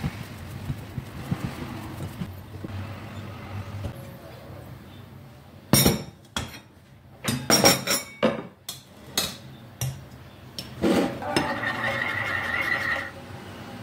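A metal ladle and spoon knocking and clinking against an enamel pot and porcelain dishes as mantı is served, with a run of sharp knocks in the middle. A steadier scraping follows for about two seconds near the end.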